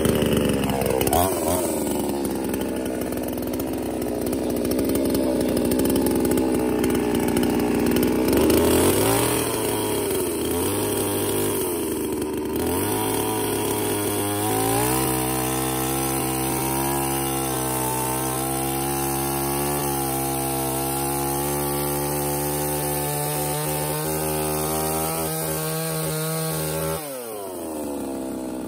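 Budget Yamaha-badged two-stroke petrol chainsaw starting up, then running at high revs as it saws through a log. The revs rise and fall at first, hold steady through the middle, and drop near the end.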